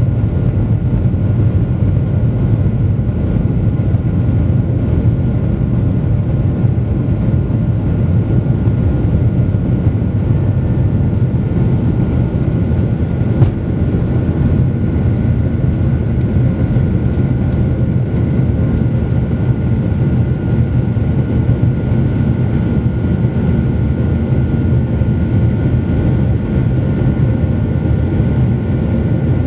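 Boeing 737-800's CFM56-7B jet engines at takeoff and climb power, heard from inside the cabin over the wing: a steady, loud low rumble with a thin steady whine above it. A single sharp click about halfway through.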